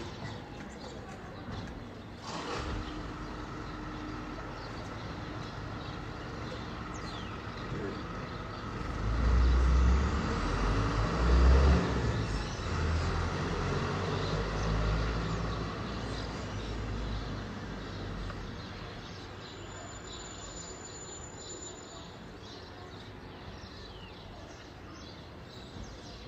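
Neighbourhood ambience: a steady background hum with birds chirping, and a vehicle passing, loudest about ten seconds in before fading away.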